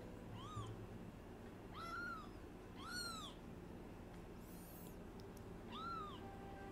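Newborn kitten mewing: about five short, high cries, each rising then falling in pitch.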